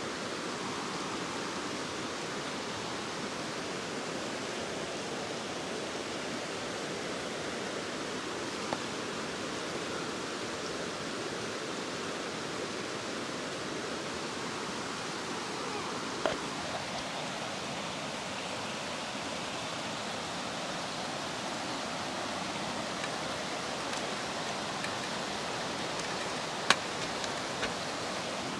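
Fast river rapids rushing steadily. A few brief sharp clicks cut through it, the loudest near the end.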